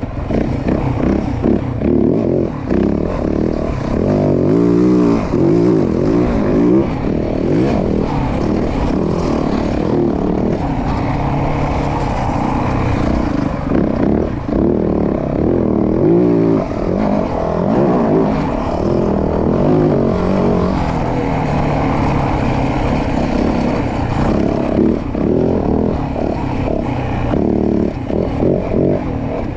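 2024 Yamaha WR450F's single-cylinder four-stroke engine under way while the bike is ridden, its revs rising and falling again and again as the throttle is worked.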